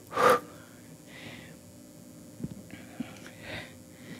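A person's sharp, audible breath right at the start, then soft breathy, whisper-like sounds and a few faint mouth clicks.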